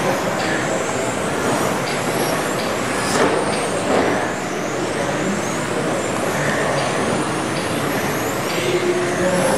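Several electric RC touring cars with 17.5-turn brushless motors and rubber tyres racing together. Their high motor and gear whines rise and fall in pitch as the cars accelerate and brake, over a steady rushing noise.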